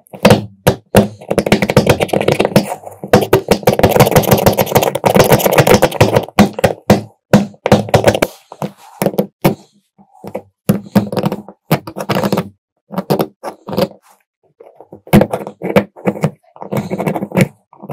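Hand tools knocking and scraping on the rusty metal lighter: a dense run of quick strikes and scrapes, then scattered single knocks and short clusters of taps.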